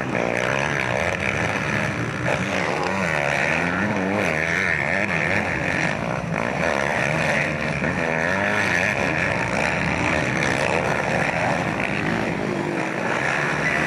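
Several motocross bikes' engines revving hard through a dirt corner. Their overlapping pitches rise and fall as the riders roll off and get back on the throttle.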